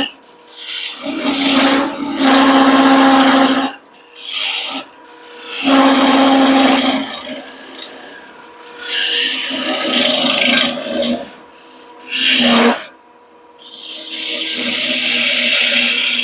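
A turning tool cuts into a walnut blank spinning on a wood lathe, parting off a plane knob. It scrapes in repeated passes of one to three seconds, each with a steady hum under it, with quieter gaps between.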